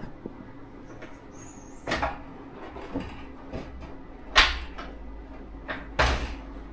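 Windows being worked open and shut, with a few sharp knocks and clatters of the frames and latches, the loudest about halfway through, as the latches are tried and fail to lock.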